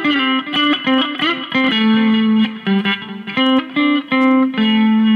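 Electric guitar with P90 pickups, a slimline Telecaster-style, played clean on the middle pickup position through a Mooer GE200 amp modeller: a single-note lick of picked notes with a few string bends, ending on a held note.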